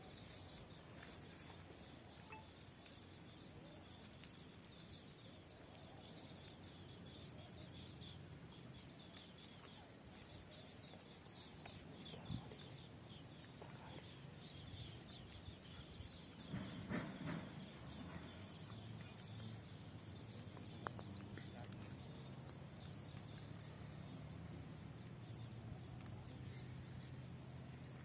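Faint outdoor ambience with distant bird chirps, a few soft clicks, and a brief rustle a little past halfway.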